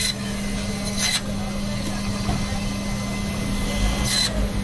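Band saw running steadily with a constant hum, its blade cutting through pieces of fish twice, about a second in and again near the end, each cut a brief high scraping sound.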